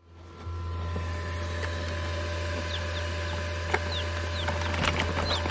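Newly hatched coturnix quail chicks peeping: scattered short, high chirps that fall in pitch, over a steady low hum, with a couple of clicks.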